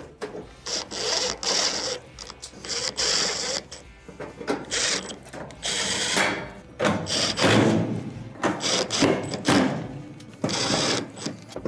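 Screws being driven into the sheet-metal rear panel of an electric range: several short, irregular bursts of a driver tool, with metal clicking and rattling between them.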